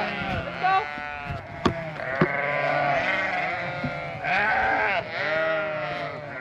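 A flock of ewes and lambs bleating, with many overlapping long calls as they are separated at weaning. Two sharp knocks sound about two seconds in.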